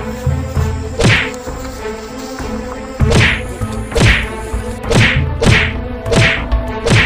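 Fight-scene punch and kick sound effects: seven sharp swishing smacks, a pair of them about half a second apart, with a steady background music tone underneath.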